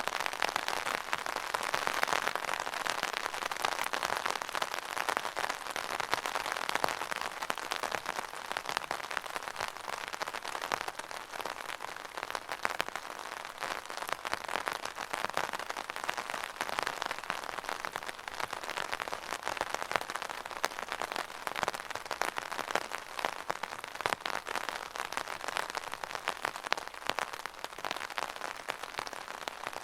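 Steady rain pattering on an umbrella's fabric canopy: a dense, continuous spatter of individual drop hits.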